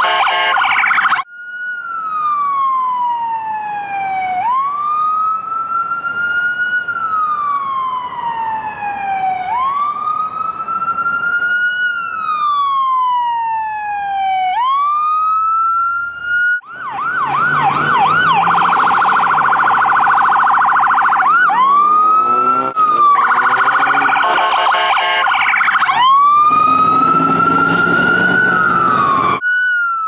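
Ambulance siren switching between its modes. After a short burst of rapid yelp at the start comes a slow wail that rises quickly and falls slowly, repeating about every five seconds. Just past the middle it changes to a rapid yelp, then alternates between yelp and wail toward the end.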